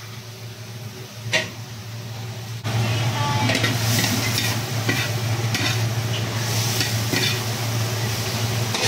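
Squid and leafy vegetables sizzling in a hot wok as a metal ladle stirs and scrapes through them. The sizzle grows louder about three seconds in, with occasional sharp scrapes of the ladle on the pan.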